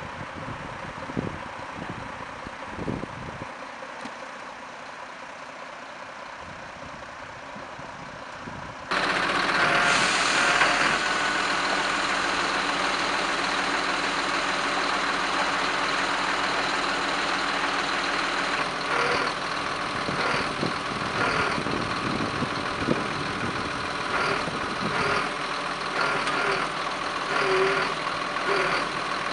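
Rumbling wind noise on the microphone, then about nine seconds in a sudden switch to a louder, steady heavy vehicle engine idling.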